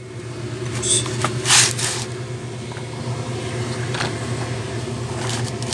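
The threaded metal cap of a grain moisture tester's hand grinding cell is screwed down on a barley sample by its T-handle, giving short metallic scrapes and grinding rasps. A steady engine drone runs underneath.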